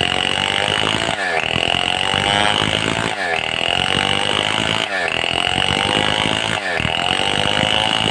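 Stihl 070 two-stroke chainsaw running at high revs while cutting wood. Its pitch rises and then dips sharply about every two seconds as the bar is worked through the log.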